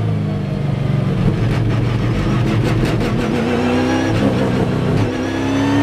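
V8 Supercar's V8 engine heard from inside the cabin, running at low, uneven revs with the car at around 50 km/h and rising slightly in pitch near the end.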